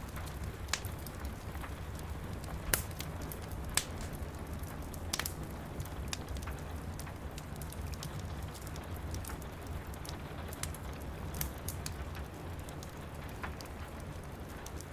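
Steady rain with a wood fire crackling over it: scattered sharp pops and snaps at irregular intervals, the loudest a little under 3 seconds in.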